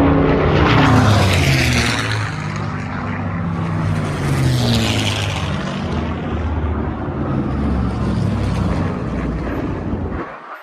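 Piston-engined warbird propeller aircraft flying past, a loud steady engine drone whose pitch falls as the planes pass, twice. It cuts off suddenly just before the end.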